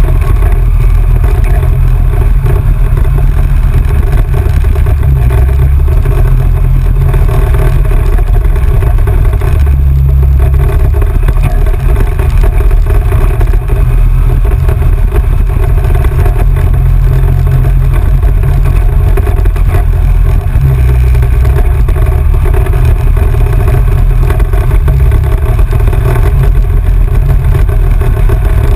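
ATV engine running steadily at trail speed, loud and close, over a heavy low rumble; its pitch holds fairly even with no sharp revving.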